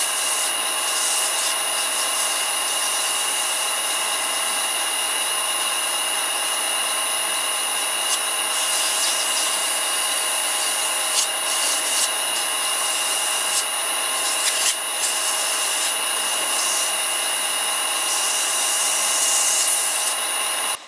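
Vintage Karger lathe running steadily with a high whine, while abrasive paper rubs against the spinning drill-chuck arbor to polish its taper.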